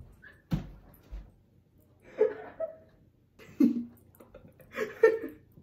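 Embarrassed laughter in three short bursts about a second and a half apart, with a sharp knock about half a second in.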